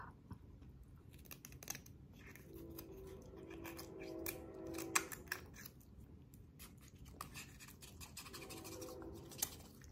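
A wooden chopstick scraping and clicking inside a boiled beef marrow bone to dig out the marrow, many short scrapes and clicks, the loudest about five seconds in. A low held hum comes in twice, in the middle and near the end.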